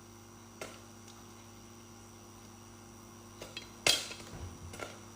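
Popcorn kernels popping in an uncovered pot of hot oil: a few sharp pops, one faint early and a quick cluster about three and a half to five seconds in, the loudest near four seconds.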